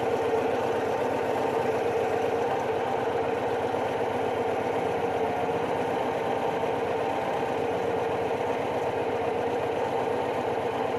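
Steady mechanical hum, even and unchanging, with one constant mid-pitched tone running through it.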